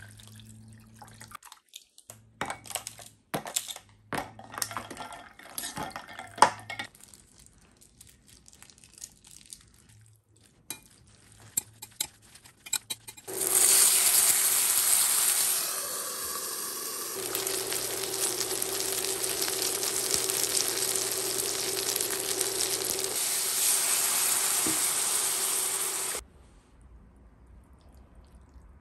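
Scattered light clinks and knocks of kitchen utensils and a pour of water. About halfway through, frozen dumplings start sizzling loudly in a hot frying pan; the sizzle runs steadily for about thirteen seconds and then cuts off abruptly.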